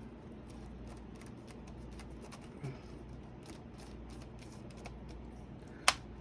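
Faint light clicks and taps of fingers pressing the keycaps of a Dell Latitude E5470 laptop keyboard to seat them, with one sharp, louder click near the end.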